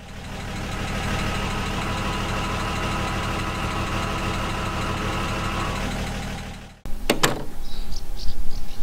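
Delahaye 135's straight-six engine idling steadily, fading in at the start and out about six seconds in. After a cut, a sharp clack and short falling whir as the semaphore trafficator arm flicks out from the body, followed by a few light ticks.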